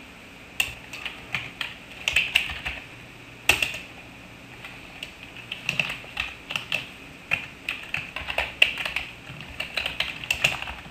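Computer keyboard typing in short bursts of keystrokes, with a few brief pauses and a quieter stretch a few seconds in.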